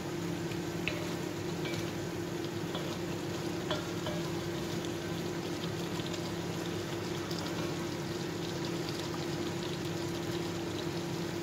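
Chicken pieces simmering and sizzling in sauce in a wok over a gas flame, a steady bubbling hiss. A wooden spatula stirring and scraping the wok gives a few faint clicks in the first few seconds. A steady low hum runs underneath.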